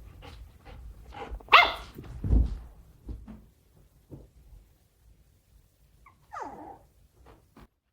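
A dog barking a few short times, loudest about a second and a half in, with a pitched call that falls in pitch near the end.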